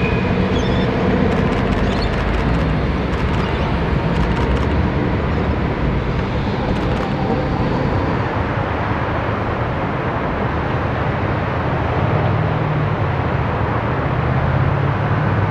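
City street traffic noise: a steady rumble of passing vehicles, with a low engine hum at the start and again from about twelve seconds in.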